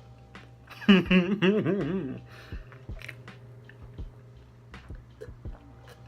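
A man chewing a mouthful of BBQ rib sandwich, with soft wet mouth clicks. About a second in he lets out a long, wavering voiced "mmm" of enjoyment.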